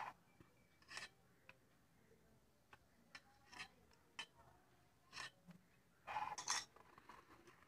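Faint, scattered clicks and scrapes of a steel knife and fingers against a steel bowl as spice powder is rubbed into raw fish pieces, with a louder scrape about six seconds in.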